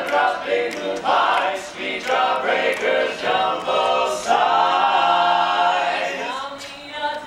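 Barbershop quartet of men's voices singing a cappella in close harmony, holding one long chord about four seconds in.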